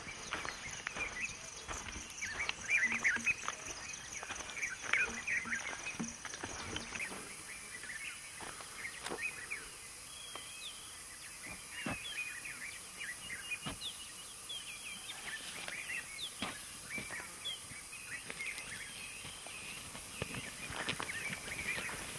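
Birds chirping and calling in the bush at dusk, with the scuff of footsteps through dry grass. A faint, steady high-pitched hiss stops abruptly about seven seconds in.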